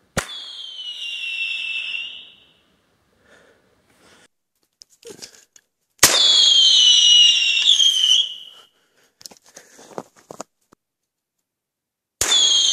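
Tru-Flare whistle flare cartridges fired from a pen launcher, three times: each a sharp pop followed by a shrill whistle that falls slightly in pitch and lasts about two seconds. The second, about six seconds in, is the loudest, and the third starts near the end.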